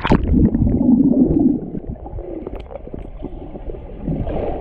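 Pool water heard with the microphone submerged: a muffled gurgling and rumbling of churned water and bubbles, loudest in the first second or two, then a duller steady wash with small clicks.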